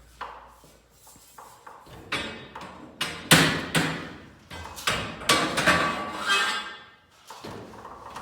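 Metal garage door torsion hardware being handled: a series of separate clanks and knocks, several of them ringing briefly, as the cable drums and torsion tube parts are knocked together and fitted.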